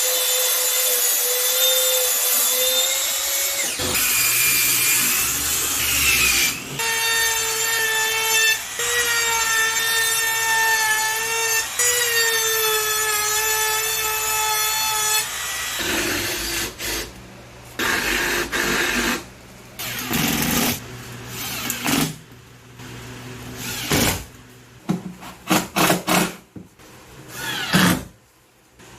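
Electric drill motor running at a high whine with slight wavers in pitch for about fifteen seconds, stopping briefly a few times. After that it runs in short separate bursts mixed with knocks.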